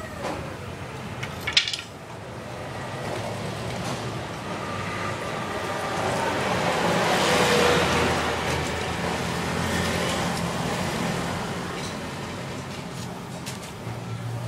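A motor vehicle passing on the street, its noise swelling to a peak about halfway through and then fading, over a steady low engine hum. A single sharp clack about a second and a half in.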